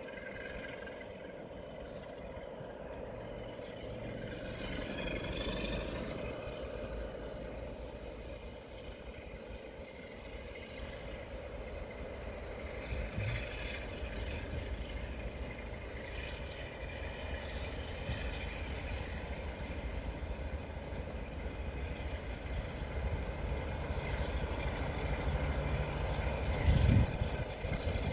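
Class 47 diesel locomotive's Sulzer V12 engine running, slowly growing louder as the train pulls out of the loop, with pitched engine notes that rise and fade twice. A brief loud thump near the end.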